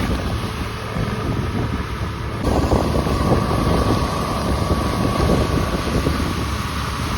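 Wind buffeting the microphone over the low running of harvest machinery, with a steady whine joining about two and a half seconds in.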